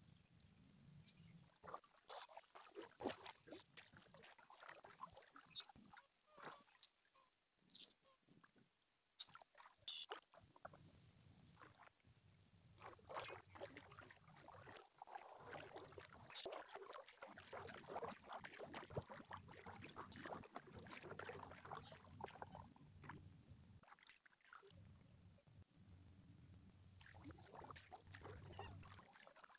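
Faint kayak paddling: paddle blades dipping into calm water, with irregular small splashes, drips and light knocks.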